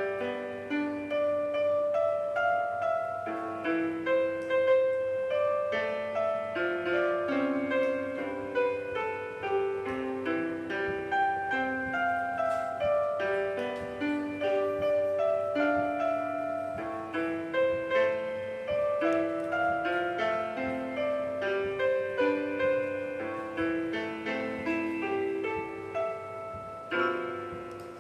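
Silicone roll-up 88-key electronic piano played by hand, its piano voice sounding from the built-in speaker: a continuous tune of single melody notes moving up and down over lower accompanying notes.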